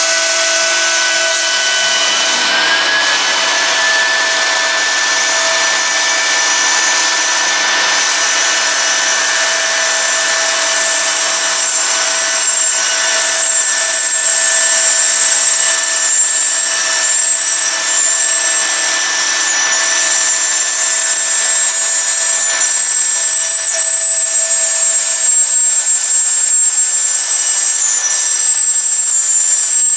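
Pro Vario 30 20 ZK vertical CNC router running: a high spindle whine over the steady rush of its dust extraction, as it mills a plywood sheet. The highest whine grows louder about ten seconds in.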